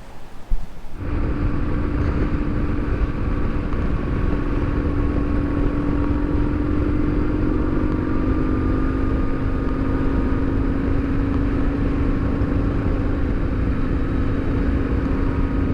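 Motorcycle engine running at a steady cruising speed, with wind and road rumble. It starts about a second in, after a brief knock.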